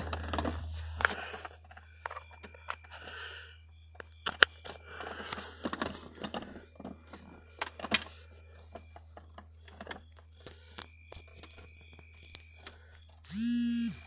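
Handling noises of a phone charger being fetched and plugged in: rustling, scraping and scattered clicks, over a steady low hum that drops a little about a second in. Near the end comes a short buzz lasting under a second.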